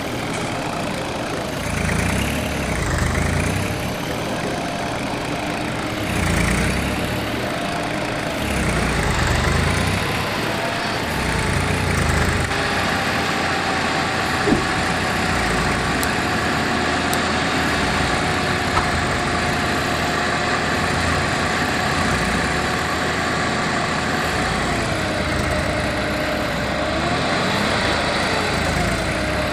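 Engine running steadily, its pitch dipping and rising a few times near the end, with two short clicks about halfway through.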